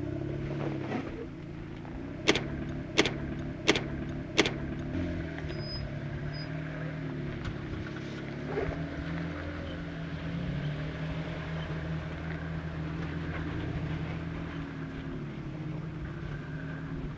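Jeep Wrangler JK's 3.8-litre V6 engine working at crawling speed up a rock slab, its pitch rising and falling with the throttle. A couple of seconds in come four sharp, evenly spaced knocks, each under a second apart.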